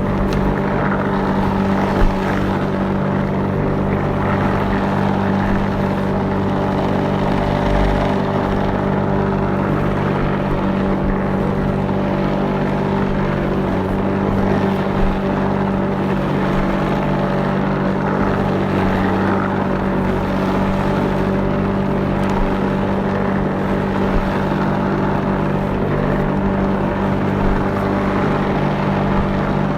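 Petrol lawnmower engine running steadily at constant speed while mowing grass, a continuous drone.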